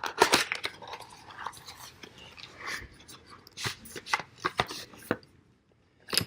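A cardboard box of .308 rifle cartridges being torn open by hand: an irregular run of crackling, tearing and clicking that stops about five seconds in, with one sharp click near the end.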